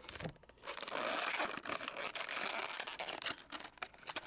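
Clear plastic blister of a die-cast toy car's package being peeled and torn away from its cardboard backing, crackling and tearing. The tearing starts about half a second in and lasts a couple of seconds, followed by smaller crinkles and clicks as the plastic is handled.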